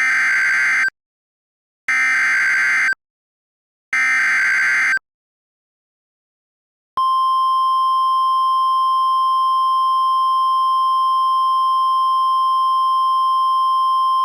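Emergency alert broadcast tones: three roughly one-second bursts of buzzy digital data (the NOAA Weather Radio SAME header) a second apart, then about seven seconds in a steady, loud, single-pitched alarm tone, the 1050 Hz weather radio warning tone, starts and holds.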